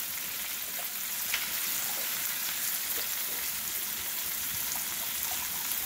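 Chicken pieces and crushed garlic sizzling steadily in a hot nonstick wok, just after soy sauce has been poured into the hot oil, with a few faint pops.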